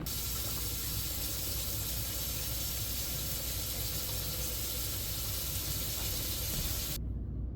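Steady hiss of running water, cutting off abruptly about seven seconds in.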